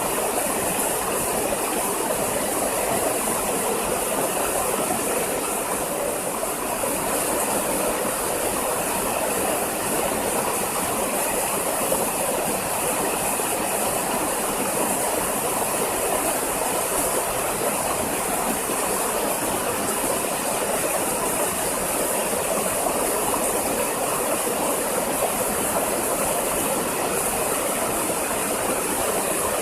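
Steady rushing of a waterfall, an even noise without breaks or separate events.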